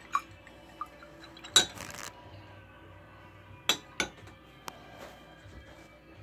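Metal spoon clinking against a glass measuring cup of rehydrating yeast being stirred: several separate clinks, the loudest about a second and a half in.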